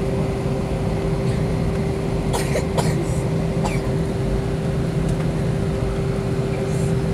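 Steady engine and airflow noise inside a jet airliner's cabin while it taxis, with a constant hum and a held tone. A few brief clicks come about two and a half seconds in.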